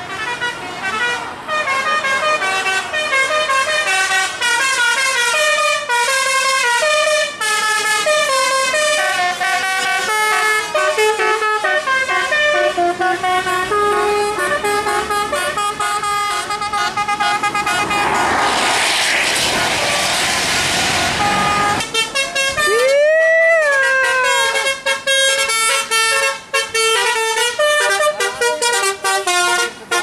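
Telolet basuri multi-tone bus horns playing fast melodic tunes, note after note stepping up and down in pitch. About eighteen seconds in, a loud rushing hiss lasts a few seconds, followed by a horn note that slides up and back down.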